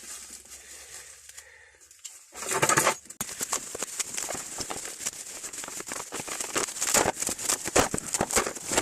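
Rustling and clattering as packaging and tools are rummaged through and unpacked from a box: a dense run of small crackles and knocks from about three seconds in, after one short louder sound.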